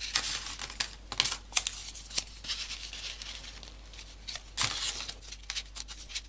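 Folded paper pieces being pushed into the slots of a modular origami model: irregular sharp paper clicks and rustling, with a louder rustle a little past the middle.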